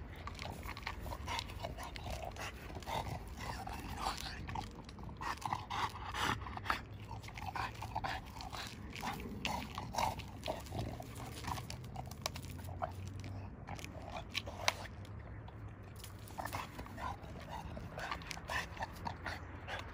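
French bulldog gnawing at a birch log, its teeth crunching and scraping on the bark and wood in irregular short bursts of clicks, with one sharper crack about three-quarters of the way through.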